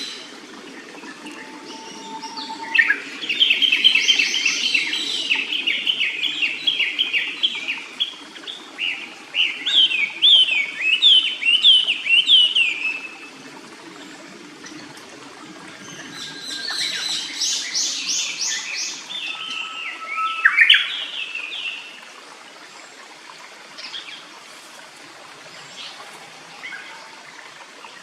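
Japanese paradise flycatcher calling in two long bouts of rapid repeated notes, one starting about three seconds in and one past the middle, over the low steady rush of a stream.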